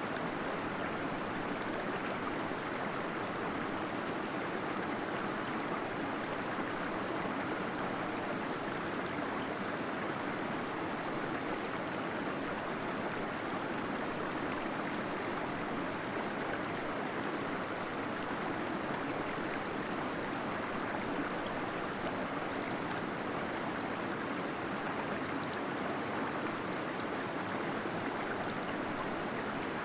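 Waterfall splashing and gurgling inside a cave, a steady unbroken rush of water.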